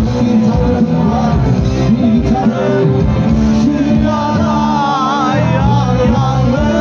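Live band music with a male lead singer singing into a microphone over bass guitar and band accompaniment, recorded from the crowd.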